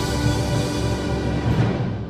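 Concert wind band holding a loud final chord over a low drum roll. It cuts off near the end and the sound dies away in the church's echo.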